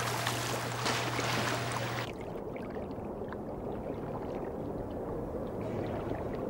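Water splashing and churning as sharks thrash at the surface, cutting off abruptly about two seconds in to a quieter, steady low rumble of water.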